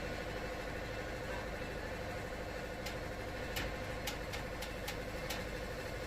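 Wood-Mizer sawmill running steadily, with a run of about seven sharp ticks between three and five and a half seconds in.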